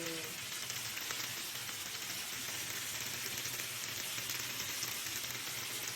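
Food sizzling and crackling steadily in hot oil in a frying pan.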